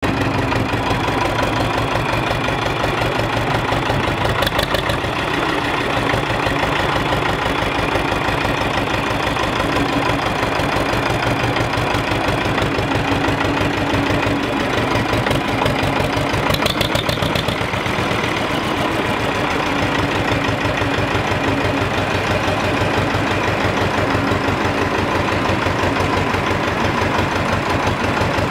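Ursus C-328 tractor's two-cylinder air-cooled diesel engine running at low, steady revs as the tractor is driven slowly, with an even beat of firing pulses. A short higher-pitched sound rises over the engine about five seconds in and again around seventeen seconds.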